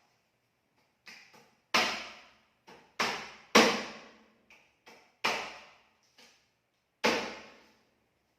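A heavy knife chopping chicken carcasses on a cutting board for eel bait: about eleven irregular chops, five of them heavy blows, each dying away quickly.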